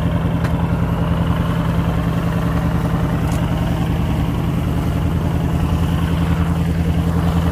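Fishing boat's engine running steadily under way, a low even drone with a regular pulse, and water rushing past the hull.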